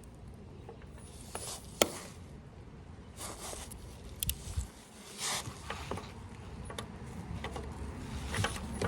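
Scattered handling noises: a sharp click about two seconds in, then several brief scrapes and rustles with a few light knocks.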